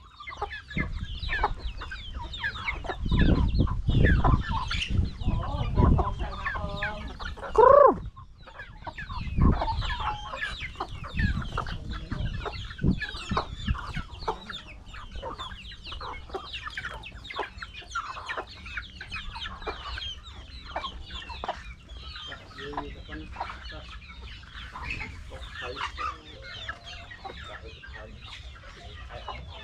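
A flock of free-range chickens clucking and calling, with many short overlapping calls and one louder, rising call about eight seconds in. Low thumps and rumbles come and go in the first ten seconds.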